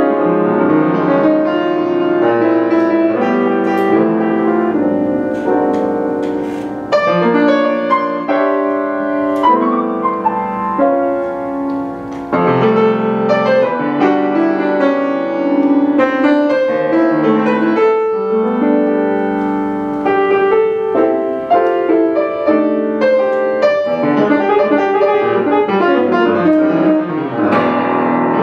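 Grand piano playing a jazz tune, chords and melody lines, with the saxophone and trumpet silent.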